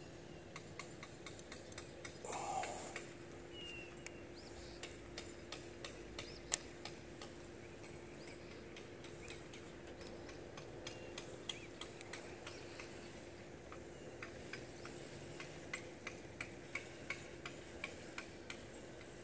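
Spinning fishing reel clicking faintly and irregularly while a hooked fish is reeled in, the clicks coming quicker near the end, with one sharper click about six and a half seconds in.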